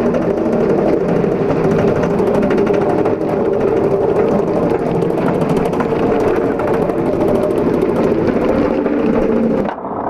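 Roller coaster lift chain hauling the train up the lift hill, a steady drone with a rapid, even clatter of anti-rollback ratchets. Near the end the clatter cuts off suddenly as the train crests the top.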